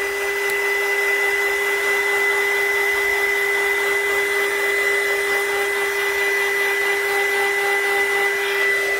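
Handheld heat gun running, with a steady whine over a rush of air.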